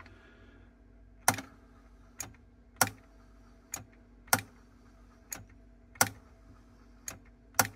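About ten sharp, irregularly spaced mechanical clicks from an opened Sony TC-K777 cassette deck's transport, over a faint steady hum, while the direct-drive reel motor fails to start despite newly fitted Hall sensors.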